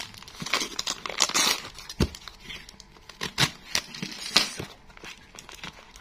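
Plastic courier mailer crinkling and tearing as it is cut and peeled open by hand around a small parcel, with irregular crackles and sharp clicks.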